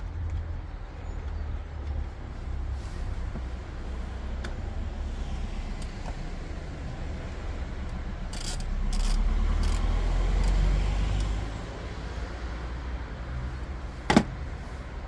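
Car engine running with a steady low hum, rising a little for a few seconds in the middle, mixed with a few light clicks of tools and parts and one sharp knock near the end.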